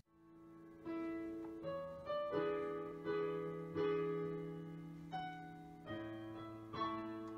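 Slow piano music: single notes and chords struck about one to two a second and left to ring and fade.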